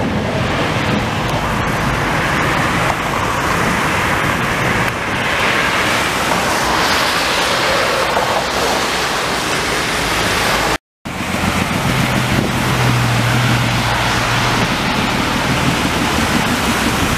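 Street traffic on a rain-wet road: trams and a car passing with a steady hiss of tyres on wet pavement and wind on the microphone. The sound cuts out for a moment about eleven seconds in, then a vintage bus passes with a low, steady engine hum.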